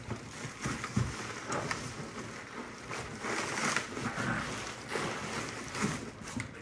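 Hands digging through plastic-wrapped spray-foam packing in a cardboard box: an irregular crinkling and rustling of plastic film and foam, with small bumps.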